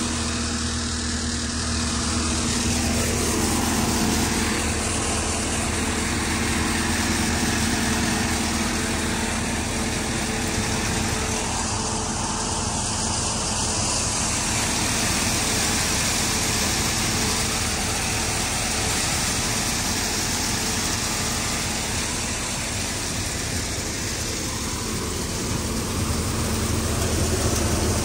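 Tractor-driven threshing machine running steadily under load as dry chickpea plants are fed in. The tractor engine's hum mixes with the continuous rushing noise of the thresher's drum, belts and pulleys.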